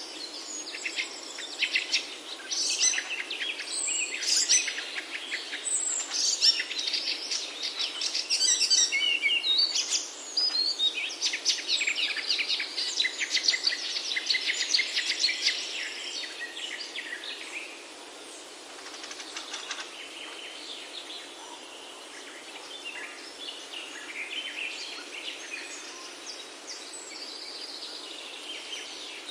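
Small birds chirping and trilling over a steady background hiss, busy in the first half and thinning out in the second half.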